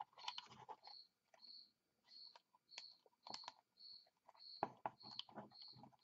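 Faint clicks and rustles of thermostat wires being twisted together into a plastic wire nut by hand, busier in the last second or so. A faint high chirp repeats a little under twice a second throughout.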